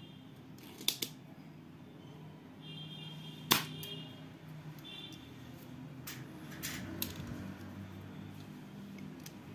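Spring-loaded desoldering pump (solder sucker) working a solder joint on a circuit board: a pair of sharp clicks about a second in, then a single loud snap about three and a half seconds in, the plunger firing to suck up the molten solder. Lighter clicks and taps follow as the pump is put down and the board is handled.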